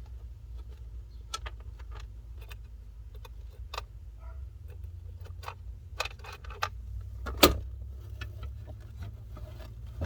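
Scattered clicks, rattles and knocks of tools and interior parts being handled while removing the e-brake, with one sharp knock about seven and a half seconds in, over a steady low hum.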